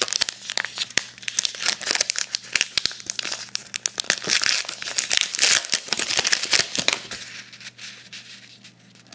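A 2012 Topps Gypsy Queen baseball card pack's wrapper crinkling and tearing as it is opened by hand: a dense run of crackles that thins out and dies away over the last couple of seconds.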